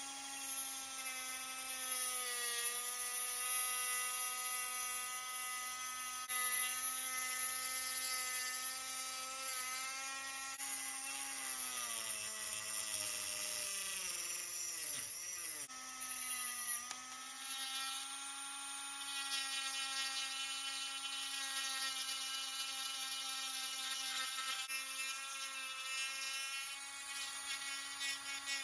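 Electric power tool motor running with a steady high whine. About halfway through its pitch drops and wavers for a few seconds, as it bogs down under load, then it climbs back to full speed.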